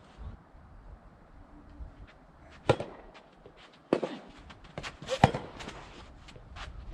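Soft tennis rackets striking a rubber ball: three loud, sharp pocks a little over a second apart, with fainter ball bounces or distant hits between them. Strong wind rumbles on the microphone underneath.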